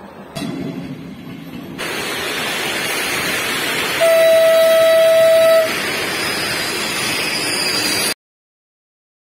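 Train noise from an approaching Czech Railways class 362 electric locomotive hauling coaches. It sounds one horn blast of about a second and a half, a single steady tone that is the loudest sound. Near the end the sound cuts off abruptly.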